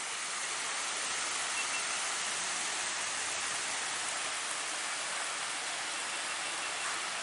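Small waterfall cascading down stepped rock ledges: a steady, even rush of falling and splashing water.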